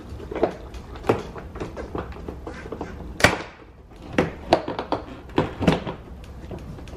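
Plastic push-pin clips of a 2011 Cadillac STS door trim panel popping loose as the panel is pried and pulled away from the door, with knocks of the panel against the door. A string of sharp snaps and knocks, the loudest about three seconds in.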